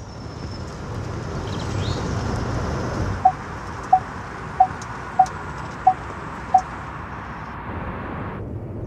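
Six short electronic beeps at one pitch, evenly spaced about two-thirds of a second apart, starting about three seconds in, over a steady rushing noise.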